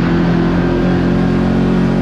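Side-by-side UTV engine running at a steady throttle, its note holding nearly even with only a slight shift in pitch about a second in.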